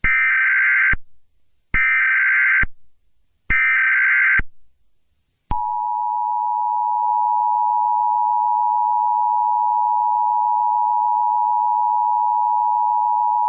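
Emergency Alert System SAME header: three bursts of warbling digital code, each about a second long, then the EAS two-tone attention signal, a steady dual tone starting about five and a half seconds in. Together they open a new alert, here a severe thunderstorm warning.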